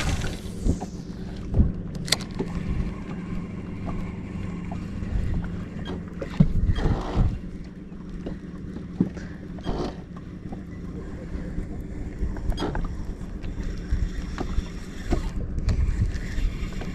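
A boat motor's steady low hum, with water and wind noise against a small boat and a few light knocks.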